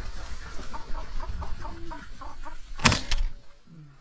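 Sharp-tailed grouse clucking: a quick run of short calls, about three or four a second. A sharp knock about three seconds in is the loudest sound.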